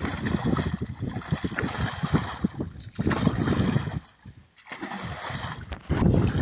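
Muddy canal water splashing and sloshing as a hooked stick is jabbed and dragged through it, in many short uneven strokes, with a brief lull about four seconds in.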